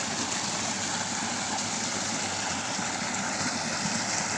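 Steady rush of water from a small stream flowing over its bed.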